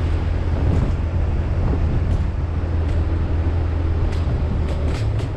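Motorbike running at a steady speed, its low engine hum mixed with wind rushing over the microphone. A few short clicks come in the second half.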